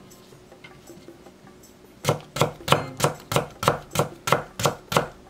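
Chef's knife julienning carrot slices on a wooden cutting board: about ten even chopping strokes, roughly three a second, starting about two seconds in.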